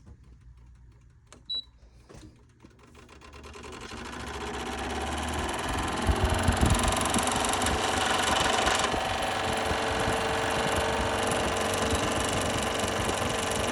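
TCL 5000 BTU air conditioner being started: a short beep and a couple of clicks, then its running noise builds over a few seconds into a loud, continuous rattling buzz, the abnormal noise that is the unit's problem.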